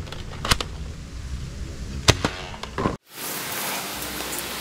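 Toy blaster shots: sharp snaps about half a second in and again in a quick group around two seconds in. About three seconds in, the sound cuts off suddenly to a steady hiss.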